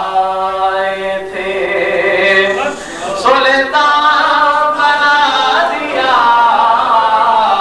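A man singing a Punjabi naat unaccompanied, in long held notes that waver and slide in pitch, with a short breath about three seconds in.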